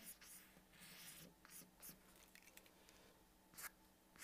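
Faint mechanical-pencil strokes on paper: several short scratchy strokes in the first two seconds, a pause, then one firmer stroke near the end.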